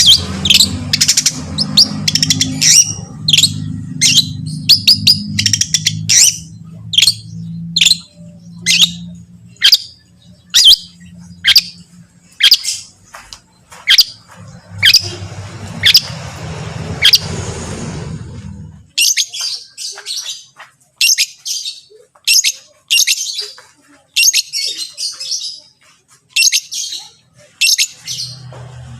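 Long-tailed shrike (cendet) singing a fast series of short, sharp, high downslurred notes, about two a second, with a low hum underneath that cuts off about two-thirds of the way through.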